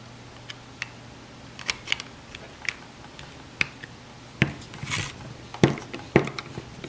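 A screwdriver, too small for the screw, working at the set screw in the plastic handle of a Bahco Laplander folding saw: scattered light clicks and taps of the tip in the screw head, then a few louder knocks and a brief scrape in the second half.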